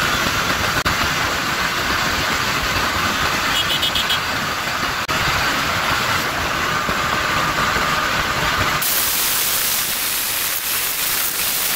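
Wind rush on the microphone mixed with the engine of a TVS Apache RTR 160 4V single-cylinder motorcycle running near its top speed, about 115 to 125 km/h. About nine seconds in, the sound changes abruptly to a steadier, thinner hiss.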